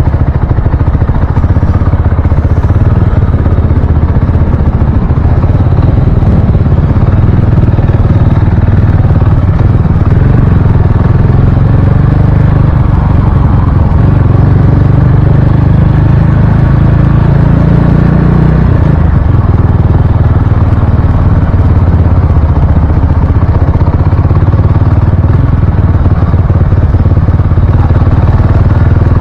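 Motorcycle engine running through traffic, heard through an action camera's microphone with a heavy low rumble of wind buffeting. About two-thirds of the way through, the engine pitch climbs for a few seconds, then drops suddenly as the throttle comes off.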